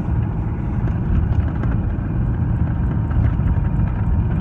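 Steady low rumble of road and engine noise inside a moving car, its tyres running on a snow-covered highway.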